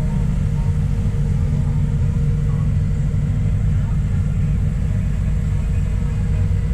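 Kobelco SK200 hydraulic excavator's diesel engine running steadily, a low, even drone with no revving.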